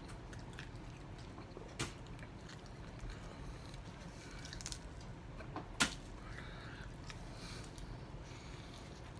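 Faint wet eating sounds of a sauce-covered chicken wing being pulled apart and eaten, with two sharp clicks, about two and six seconds in.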